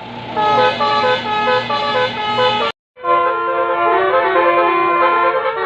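Bus telolet horns: several air horns sounding together in stepped, tune-like notes. A brief break comes near three seconds in, then a second melody of held notes follows.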